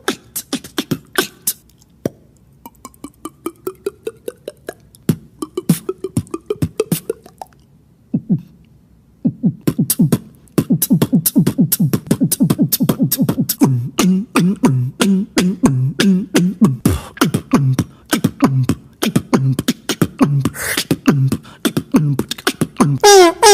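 Beatboxing: mouth percussion of sharp clicks and hits. About three seconds in, a rising hum runs under the clicks. After a short pause, from about ten seconds in, a fast unbroken pattern of hits with low bass notes sets in.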